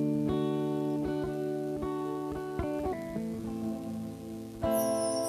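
Guitar playing slow, sustained chords that change every second or so. Near the end a louder chord comes in with a bright high shimmer.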